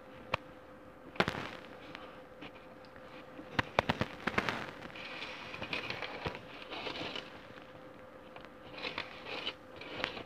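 Fingers pressing potting soil down around a succulent's roots in a tuna-can planter: irregular crackling and scraping with sharp clicks, the loudest a quick cluster about four seconds in.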